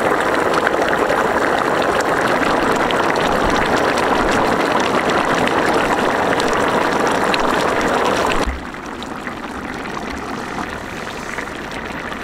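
Thick fish curry boiling hard in a large pot, a dense, steady bubbling. About eight seconds in it drops to a quieter bubbling with small pops.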